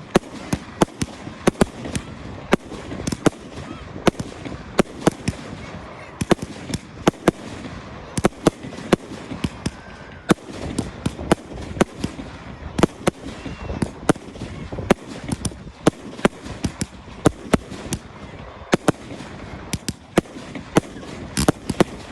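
Fireworks display going off continuously: rapid, irregular sharp bangs, often several a second, over steady crackling.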